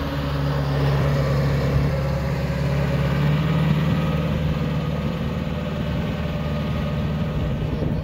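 John Deere tractor's diesel engine running steadily under load as it pulls a chisel plow through the field.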